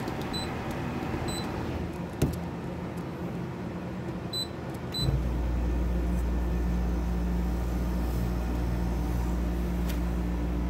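Toshiba dehumidifier's control panel beeping four times as its buttons are pressed, then about five seconds in the unit starts running with a steady low hum.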